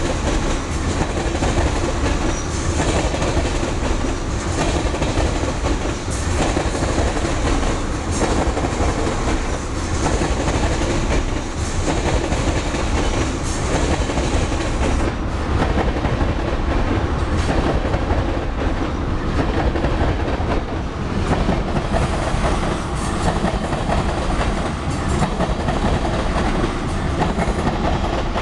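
Freight train of black tank cars rolling past close by, steel wheels clattering rhythmically as they cross the rail joints and the crossing diamond.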